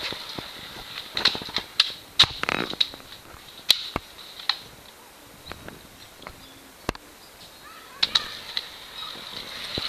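Irregular sharp clacks and knocks of scooter and skateboard wheels and decks striking concrete, the loudest about two seconds in.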